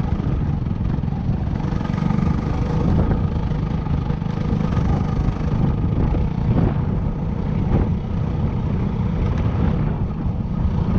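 Yamaha WR250R's single-cylinder four-stroke engine running at a steady, easy pace on a rough gravel track, heard from on the bike. A heavy low rumble from the engine, ground and wind goes on without a break.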